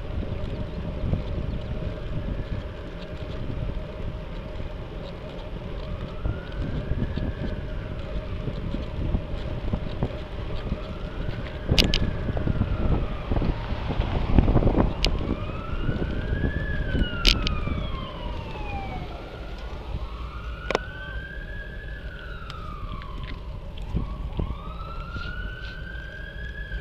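A siren wailing, its pitch rising and falling in slow sweeps a few seconds long, loudest in the middle, over steady wind noise on the microphone from riding. A few sharp clicks come through in the middle stretch.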